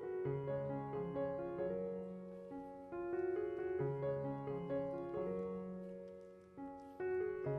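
Background piano music: a gentle melody of single notes over held low bass notes.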